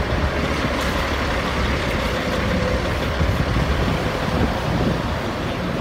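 FDNY fire engine's diesel engine running close by as the rig moves along the street, a steady low rumble, with an SUV driving past.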